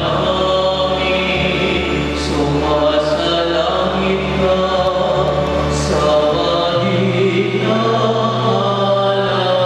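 Choir and congregation singing a slow sung acclamation of the Catholic Mass over sustained organ chords. The chord shifts about seven seconds in.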